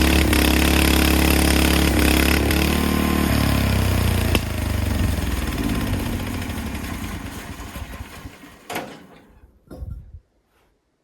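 Portable band sawmill running under power; its engine cuts out about three seconds in and the mill whirs down, fading over the next several seconds. A few knocks follow near the end.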